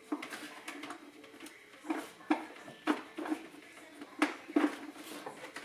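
Irregular light knocks and clicks of hard objects being handled and set down, about a dozen over a few seconds.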